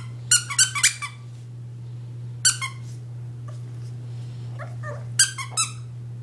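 Squeaky dog toy squeaking in short, sharp, high-pitched squeaks: a quick run of four in the first second, one more about two and a half seconds in, and two near the end.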